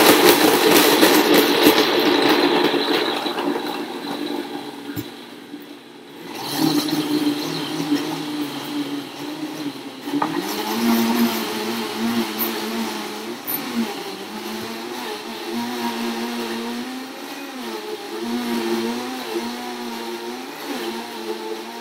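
Blendtec blender motor running, blending frozen berries and ice into a thick shake. It is loudest and noisiest for the first few seconds while the frozen fruit and ice break up, eases after about six seconds, and from about ten seconds its hum wavers up and down in pitch as the thick mixture churns.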